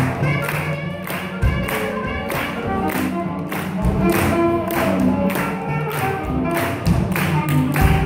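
A live swing jazz band plays an up-tempo tune with a steady, even beat. A few heavy thumps stand out from the music.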